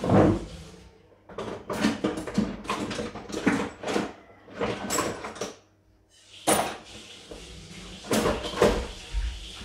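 Plastic packing wrap and cardboard rustling and knocking as they are handled inside a box, in irregular bursts with a short lull about two-thirds of the way in.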